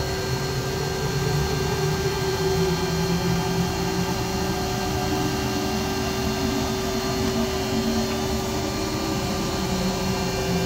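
Steady machinery hum: a constant mechanical drone with a steady mid-pitched tone and a low rumble that swells and fades.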